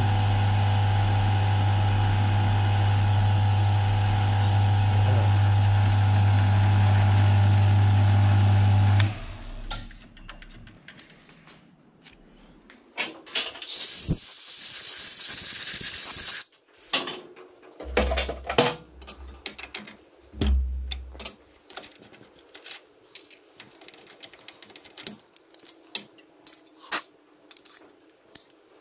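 Milling machine motor running with a steady hum that stops abruptly about a third of the way in. Then a loud hiss lasting a few seconds, two brief low hums, and scattered clicks and knocks of tools and parts being handled.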